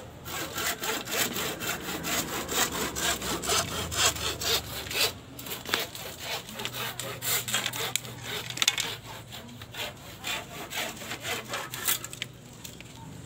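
Hand saw cutting through a green bamboo pole in quick back-and-forth strokes. The strokes pause briefly about five seconds in and stop near the end.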